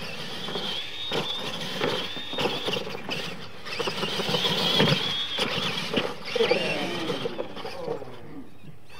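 Electric radio-controlled monster trucks (Tamiya Clod Buster-style) racing on dirt: a high motor-and-gear whine that wavers with the throttle, broken by several knocks as the trucks bounce and land, the loudest about halfway through. Near the end, the whine slides down in pitch as the trucks ease off.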